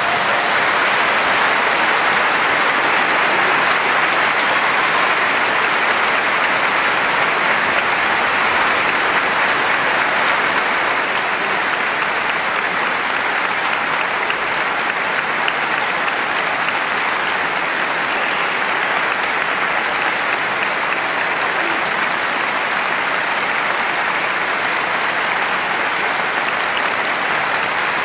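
A large concert audience applauding, dense clapping that breaks out as the orchestra's last chord ends and then goes on steadily.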